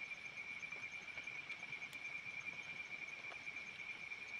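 Insects trilling in a steady, high-pitched, finely pulsing chorus, with a few faint ticks.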